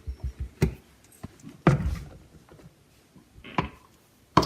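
A few separate sharp knocks of kitchen containers and utensils while ingredients are measured out, the loudest about two seconds in.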